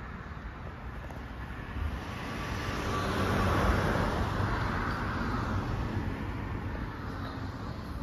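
A road vehicle passing by, swelling to its loudest three to four seconds in and then fading, over a low rumble of wind on the microphone.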